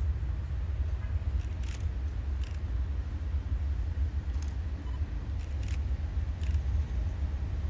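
Steady low rumble of an approaching freight train's diesel-electric locomotives, with a few light clicks scattered through it.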